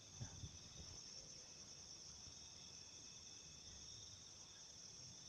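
Faint, steady high-pitched chorus of insects trilling, with a few soft low knocks about a quarter to half a second in.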